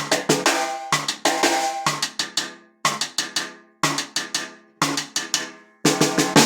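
Pearl brass piccolo snare drum (brass shell, brass hardware) being played: short flurries of several quick strokes about once a second, each ringing on with a bright tone, then a longer, busier run of strokes near the end.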